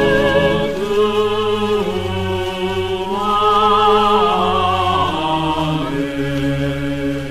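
Background music: singing voices holding long notes with vibrato over a steady low accompaniment.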